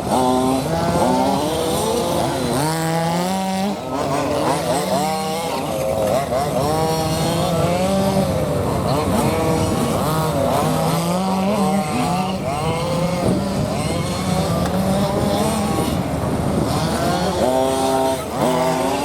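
Small petrol engines of RC models running and revving, several at once, their pitch wavering up and down.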